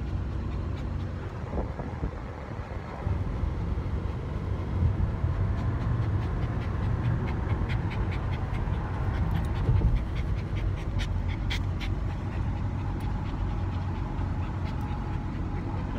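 Dogs panting inside a moving car over a steady low rumble of road and wind noise, with scattered short clicks through the second half.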